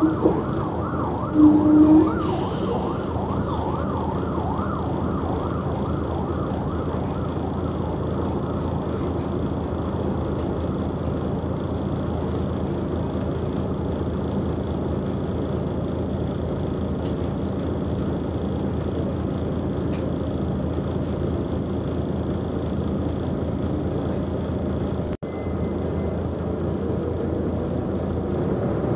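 Mercedes-Benz O345G articulated bus idling while stationary: a steady engine note with a wavering whine over it that is strongest in the first few seconds. A short loud tone sounds about two seconds in, and the sound cuts out for an instant late on.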